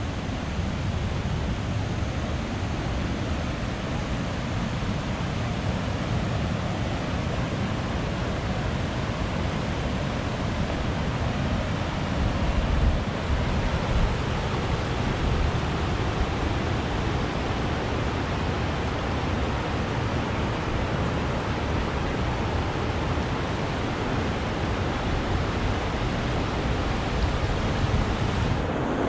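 Steady, loud rush of fast-flowing water, with a few stronger low rumbles near the middle.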